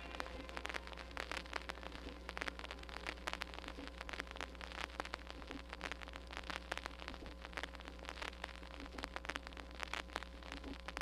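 Vinyl record surface noise in the silent groove between tracks: dense crackle and clicks from the stylus, over a steady low hum.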